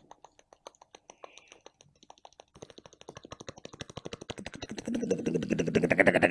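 A mimicry artist imitating a helicopter with his mouth: rapid tongue clicks on 'ta-ka' start faint and unvoiced, grow faster and louder, and about five seconds in become a loud voiced 'da-ga' pulsing, like a rotor spinning up.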